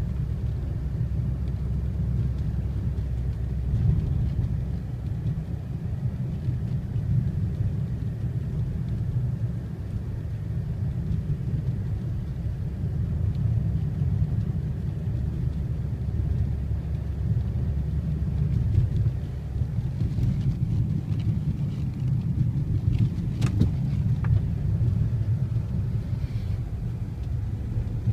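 Steady low rumble of a car driving on a snow-covered road, heard from inside the cabin, with one brief click late on.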